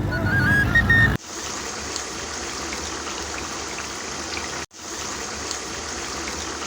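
Curry sizzling and bubbling in a karahi, a steady hiss dotted with small pops; flute music stops about a second in, and the sizzling breaks off briefly near the middle.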